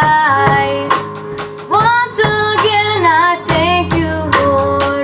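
Worship song: a woman's voice singing the chorus over guitar accompaniment.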